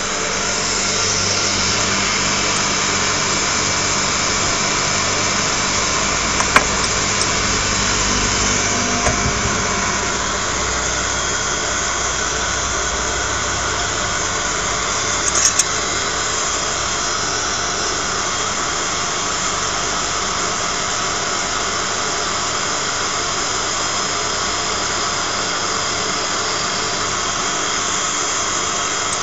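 Electric vertical paste-grinding mill running steadily under load, its motor and grinding head giving a continuous whirring drone while brown paste pours from the spout. A sharp click about six seconds in and a few brief knocks around the middle.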